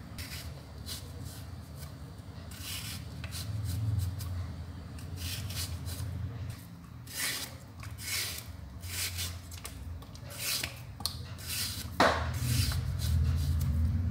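Peeler knife (dao bào) shaving thin slices off a peeled green banana: a run of short rasping scrapes, one or two a second, with a sharper knock about twelve seconds in.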